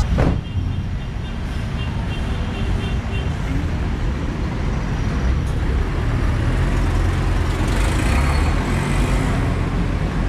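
Steady street traffic noise: a low rumble of motor vehicles.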